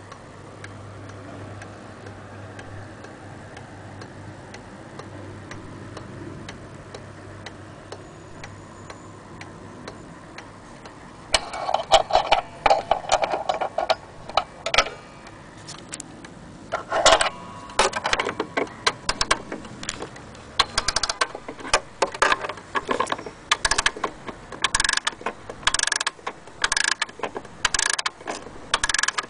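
Small key-wound pendulum wall clock ticking softly. About a third of the way in, a brass winding key clatters against the case, then the clock's ratchet clicks in short repeated runs as the key winds the mainspring.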